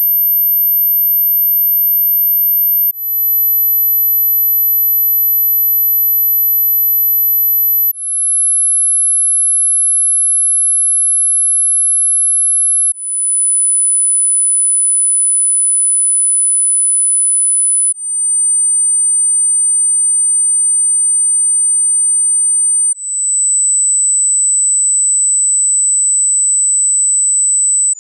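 Hearing-test pure sine tones: a single steady, very high-pitched tone that steps down in pitch every five seconds, six tones in all, each fading back in after a brief dip.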